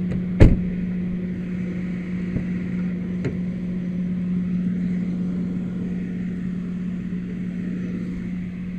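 A steady engine drone holding one unchanging pitch, like a vehicle idling, with a sharp knock about half a second in and a fainter click a little after three seconds.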